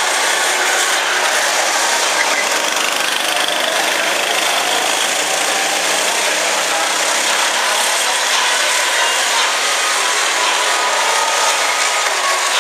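Go-kart engines running as karts lap the track, a steady buzzing drone whose pitch wanders slightly as the karts speed up and slow.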